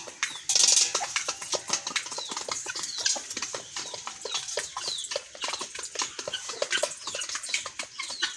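Chickens and guinea fowl pecking grain from metal bowls: a dense, irregular patter of short clicks and taps, with many short, falling high chirps from the flock. A brief loud rush of noise comes about half a second in.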